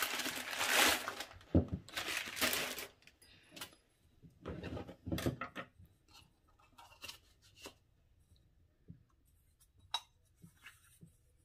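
Clear plastic wrapping rustling and tearing as it is pulled off a motorcycle cylinder block, for about the first three seconds, with another short rustle around five seconds in. After that, a few light clicks and knocks as the metal block is set down and handled.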